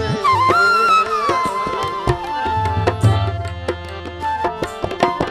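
Tabla playing between sung lines: quick sharp strokes on the small drum, with deep ringing strokes on the bass drum. A held melodic note gliding down at the start fades out after about three seconds.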